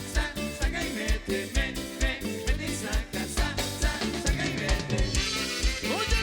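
Cumbia band playing live, with a steady, strong bass beat about three times a second. A little before the end a tone rises and then falls.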